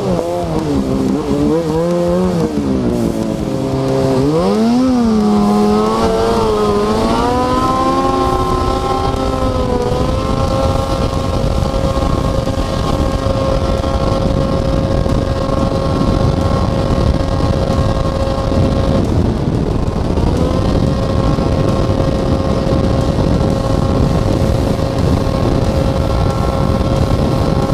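Snowmobile engine riding hard: the pitch swings up and down with the throttle for the first several seconds, then holds steady at speed. It drops off briefly about two-thirds of the way through and climbs straight back, over a constant rush of wind and track noise.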